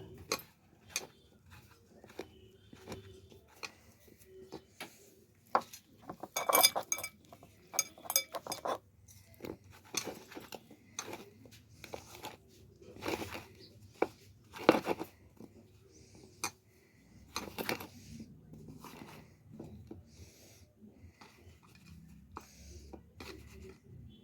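A utensil clinking and scraping against a bowl in irregular knocks, with a few louder strikes, as sliced potatoes are mixed with gram flour, rice flour and spices.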